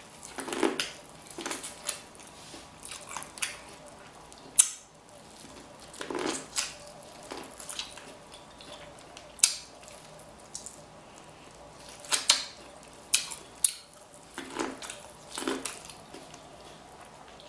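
Close-miked mukbang eating sounds: chewing and wet mouth sounds with irregular sharp clicks and taps.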